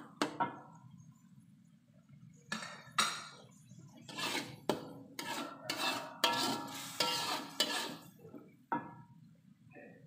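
Metal spatula scraping and clanking against a wok, stirring frying spice paste in short bursts of strokes, busiest in the second half.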